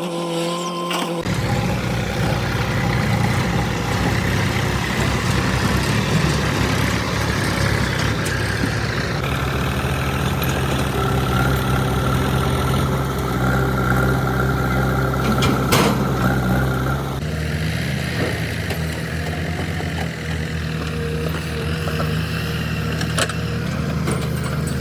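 Diesel engine of heavy machinery running steadily, its note shifting a few times, with a single sharp knock about sixteen seconds in.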